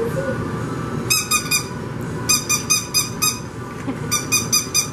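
Squeaky dog toy squeezed again and again in three quick runs of short, high squeaks.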